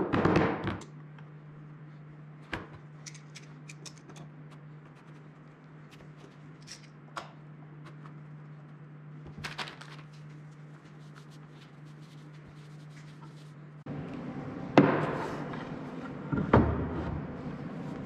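A soft-faced mallet tapping a wooden board, a quick run of strikes in the first second. Then quiet small clicks and knocks of clamps and wood being handled over a steady low hum. A few seconds before the end come two louder wooden thumps as a board is set against a mitre saw's fence.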